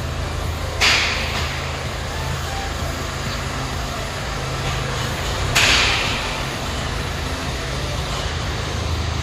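A steady low mechanical hum with two short bursts of hiss, one about a second in and a louder one near six seconds.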